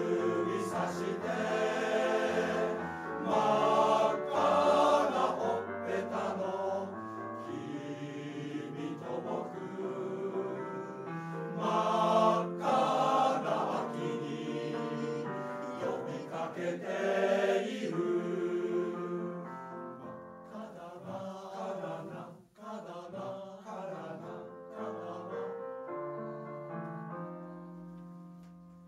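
Men's choir singing in harmony, swelling loud a few times and then growing softer, fading out near the end.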